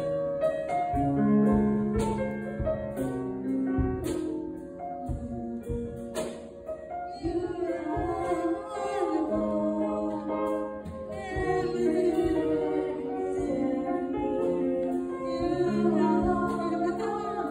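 Grand piano playing slow, sustained chords and a melody, with a voice joining it in song about seven seconds in.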